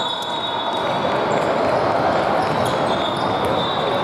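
Basketball game in a gym: a basketball bouncing amid steady crowd chatter, with a faint steady high tone.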